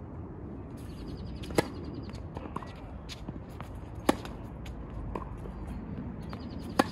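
Tennis racket striking the ball three times, sharp pops about two and a half seconds apart during a rally on an outdoor hard court, with fainter knocks of the ball bouncing in between.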